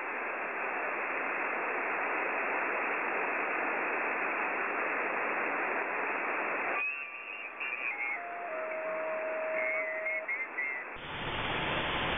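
Shortwave receiver static from a web SDR tuned to the CB 11-meter band, a dense hiss with no voices. About seven seconds in, the hiss thins and steady whistling tones appear, stepping down in pitch as the receiver is retuned. Near the end the hiss turns fuller as the receiver switches to a wider bandwidth.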